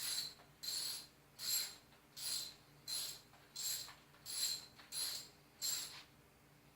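Socket ratchet being worked back and forth, its pawl clicking in nine short runs about every 0.7 s until it stops about six seconds in, as the bicycle stem bolt is tightened with a 15 mm socket.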